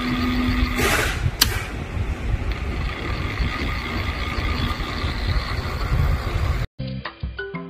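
Servo motor running steadily on test, a constant mechanical whine of several tones over a low rumble, with a short hiss and a click about a second in. It cuts off about a second before the end, and background music starts.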